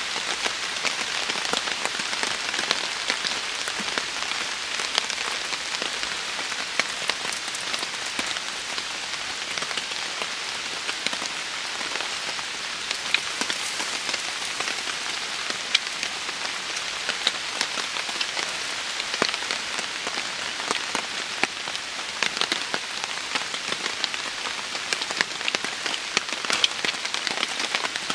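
Torrential rain pouring steadily, with scattered louder drops striking close by.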